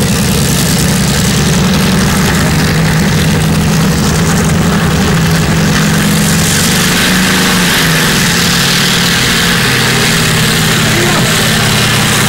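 Engine of a 950 kg modified pulling tractor running hard at a steady pitch as it drags the weight-transfer sled down the track.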